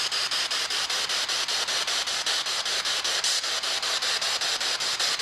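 Spirit box sweeping through radio frequencies: a steady hiss of static broken by regular clicks about six or seven times a second as it jumps from one frequency to the next.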